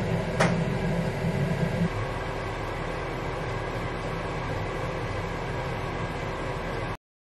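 Steady mechanical hum like a kitchen fan, with a single sharp clink about half a second in as soup is served from a steel pot. The deepest part of the hum drops away about two seconds in, and the sound cuts off suddenly near the end.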